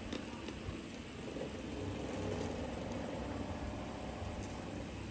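Steady low background rumble with a faint hiss and a few faint clicks.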